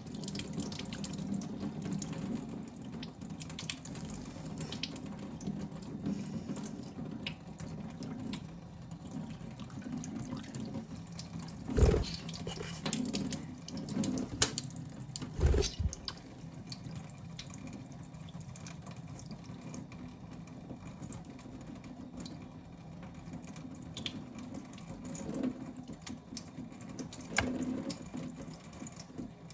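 Water running steadily from a tap, with a few short, loud knocks about halfway through and another near the end.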